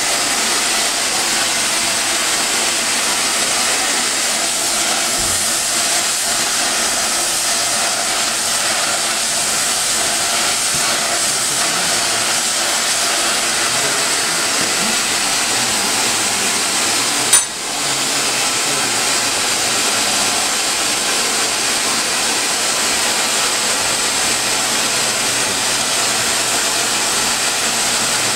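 A forge running with a steady, even rushing hiss. A single sharp click comes a little past the middle, with a brief dip in the hiss.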